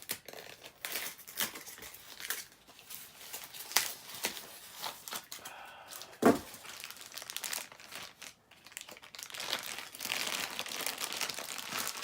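Packaging being handled, crinkling and tearing in irregular crackles as a lightsaber is unwrapped from its box, with one sharp knock about six seconds in and denser crinkling near the end.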